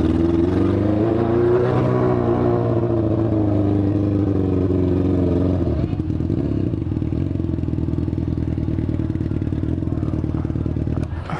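Yamaha FZ6's inline-four engine, running without its catalytic converter, rises then falls in pitch over the first several seconds, then settles into a steady, slightly quieter drone from about six seconds in. The rider calls the noise it is making ugly and strange, and earlier said the bike was misfiring.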